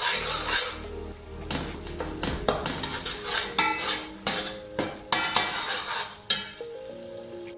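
A long metal spatula stirring and scraping around a large aluminium pot of spiced masala frying in oil, with repeated clinks and scrapes against the pot's sides and base.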